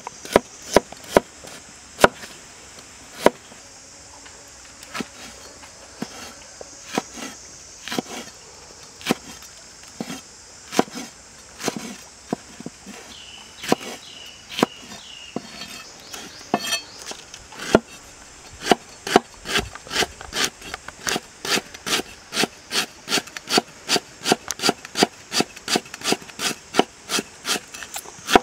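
Large kitchen knife chopping vegetables on a wooden cutting board, each stroke a sharp knock of the blade on the wood. The knocks come singly about a second apart at first, then turn into a quick even run of two to three chops a second in the last ten seconds.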